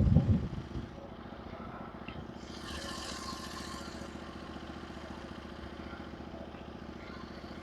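Portable sawmill's engine idling steadily between cuts, with a brief higher hiss about two and a half seconds in.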